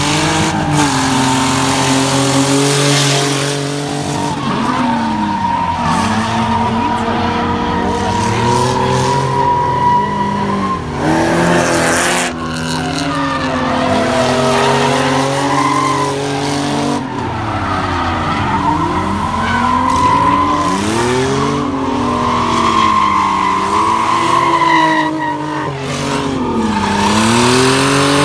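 Drift cars sliding through the corners: the engines rev up and down over and over as the throttle is worked, at times more than one engine at once. Tires squeal in a steady high screech throughout.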